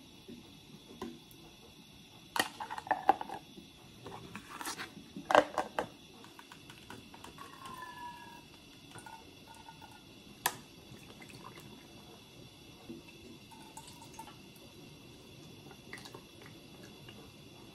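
Hard plastic container parts clicking and knocking against each other and the countertop, followed by liquid pouring from a plastic measuring jug into a plastic container with a soft gurgle, then a sharp knock and a few small taps.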